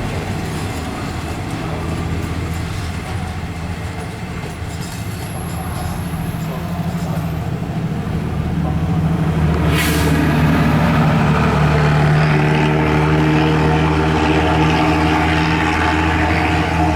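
Diesel locomotive of a freight train, a GE CM22-7i, with its engine running in a steady low drone. It grows louder from about halfway through as the engine works harder. A single brief sharp noise comes near the middle.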